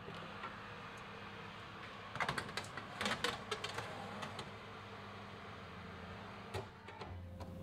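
Metal baking tray being slid into a wall oven on its rack runners: a cluster of clattering metal clicks and scrapes about two to four seconds in, then a single sharper knock near the end, over a steady background hiss.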